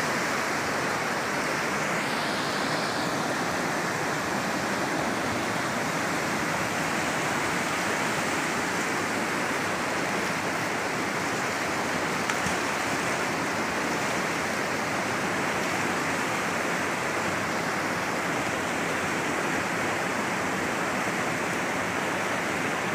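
White-water river rapids rushing steadily over rocks: a dense, even roar of fast-flowing water.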